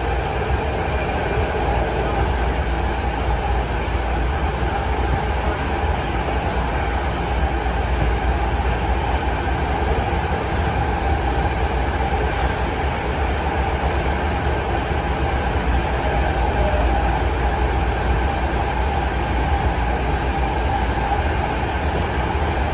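BART train running through an underwater rail tunnel, heard from inside a passenger car: a steady, loud rumble of wheels on rail and running gear with a constant hum over it.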